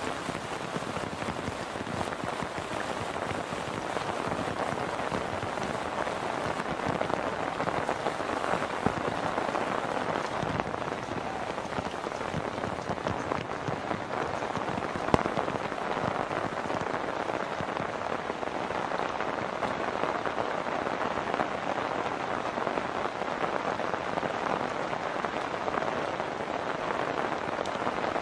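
Heavy monsoon rain falling steadily, a dense even hiss of drops on the road and standing water. Two brief sharp ticks stand out, about a third of the way in and about halfway through.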